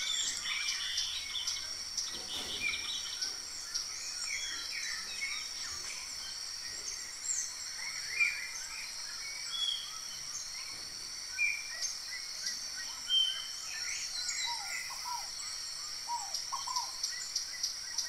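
Small birds chirping and calling outdoors: many short, scattered notes and trills, over a steady high-pitched drone in the background.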